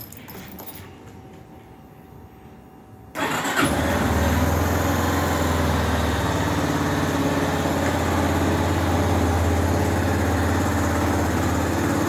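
Yamaha Fazer 250's single-cylinder four-stroke engine starting up about three seconds in, then idling steadily, freshly rebuilt with a new gasket kit.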